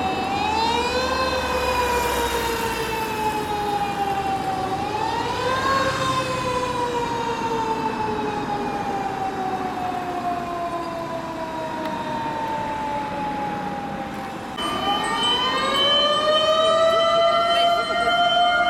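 Tokyo Fire Department pump engine's mechanical motor siren winding up, then slowly winding down in pitch, twice. About fifteen seconds in a louder siren winds up and holds its pitch, with a steady high tone alongside.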